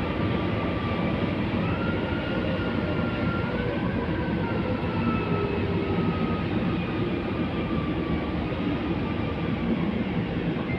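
Metro train heard from inside the car: a steady rumble with an electric whine that glides up and down in pitch as the train moves.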